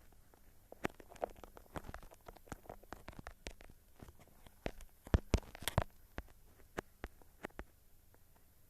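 Scattered light clicks and taps at an irregular pace, with a louder cluster about five seconds in.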